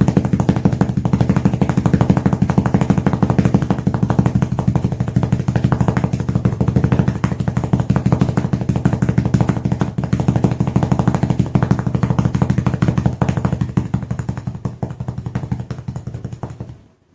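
Foley imitation of a helicopter: a rapid, steady chopping flutter of rotor-like beats that weakens over the last few seconds and then stops.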